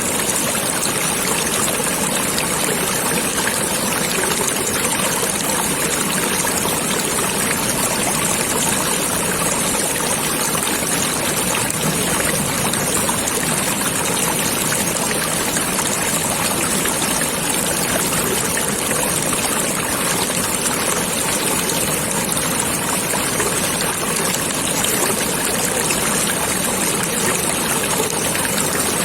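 A stream of water flowing and trickling steadily, an even rushing babble that does not change.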